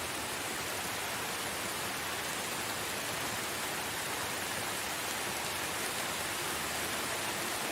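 Steady, even rain, a constant hiss of falling water with no distinct drops or thunder.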